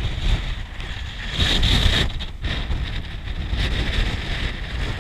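Wind buffeting the microphone: an uneven low rumble under a rushing noise that swells about a second and a half in.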